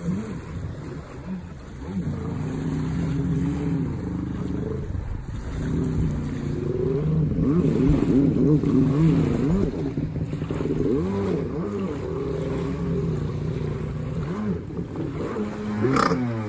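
Stand-up jet ski's Jetmaniac 781 two-stroke engine revving up and down again and again under hard riding, with a sharp rise in revs near the end as the ski goes over in a backflip.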